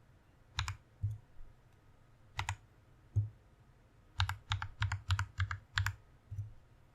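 Typing on a Press Play Orbiter67 mechanical keyboard: a few scattered single keystrokes, then a quick run of about seven keystrokes some four to six seconds in. Each press gives a sharp clack over a low thud.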